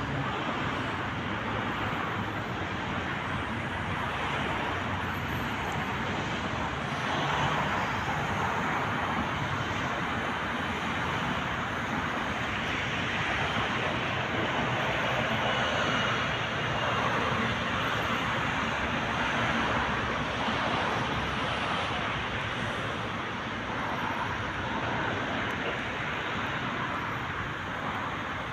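Steady road traffic noise, a continuous hum of cars with a few passing vehicles swelling slightly louder now and then.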